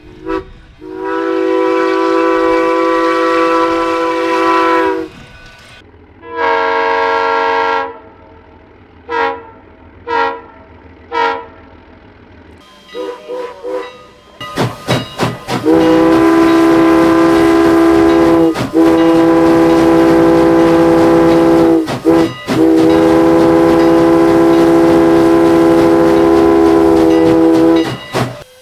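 Multi-chime train horn. It gives a long blast, a shorter one, three short toots and a couple of quick toots. Then, over the clatter of a passing train's wheels, it sounds the grade-crossing pattern: long, long, short, long.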